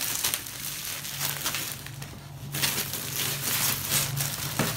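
Clear cellophane plastic film being peeled off a laptop table and bunched up in the hand: irregular crinkling and rustling, with a short lull about two seconds in.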